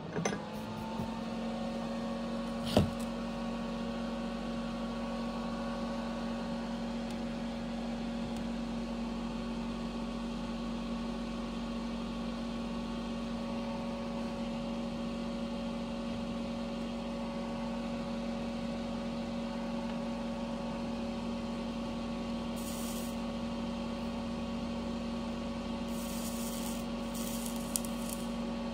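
A small electric motor spins up and runs with a steady hum, with one sharp knock about three seconds in and a few short, faint hisses near the end.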